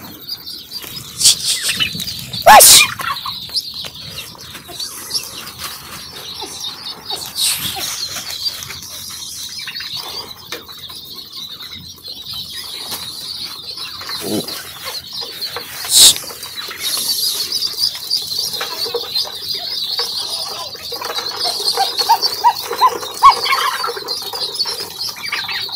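A flock of 16-day-old ducklings peeping together in a steady high chatter, with wing flapping and scuffling among them. Two sharp knocks stand out, one about two and a half seconds in and one about sixteen seconds in.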